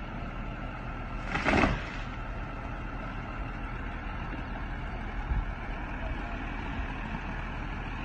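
Heavy vehicle engine idling steadily, with a brief rushing burst about a second and a half in.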